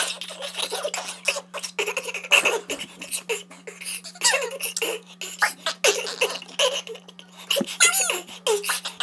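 A person making sound effects with the mouth: a rapid run of clicks and pops mixed with short, squeaky rising and falling vocal glides, over a steady low hum.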